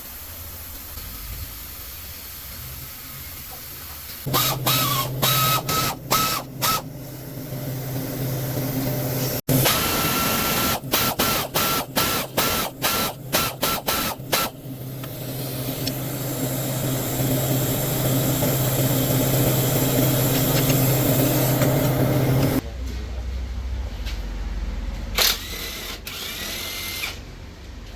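Handheld electric power tool motor, switched on and off in quick bursts several times, with longer continuous runs in between.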